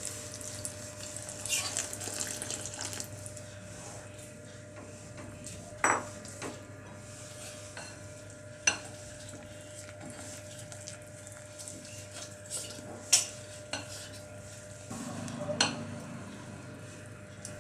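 A spatula stirring a wet batter of ground Oreo biscuits and milk in a glass mixing bowl: a soft, continuous scraping and sloshing, with a few sharp knocks of the spatula against the glass, the loudest about 13 seconds in.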